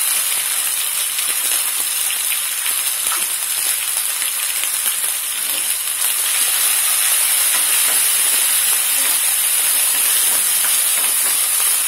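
Onions, spices and freshly added tomato pieces sizzling in hot oil in a nonstick frying pan, with a spatula stirring through them. The sizzle is a steady hiss that grows slightly louder about six seconds in.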